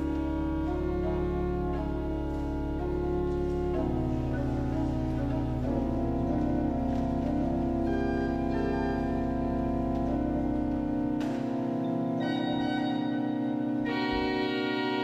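Giroud pipe organ playing slow sustained chords over a deep held pedal note, improvised film accompaniment. The chords shift a few times, the pedal note drops out about eleven seconds in, and brighter high notes join near the end.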